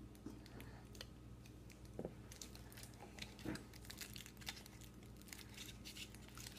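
Foil wrapper of a Kinder Surprise chocolate egg being peeled off by hand: faint crinkling and tearing, with small crackles coming thicker from about two seconds in.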